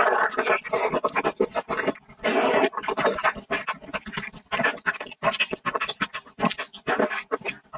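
Close-miked eating: crunching bites into the battered crust of a fried chicken leg for the first couple of seconds, then irregular slurps and wet chewing of glass noodles in sour and spicy broth.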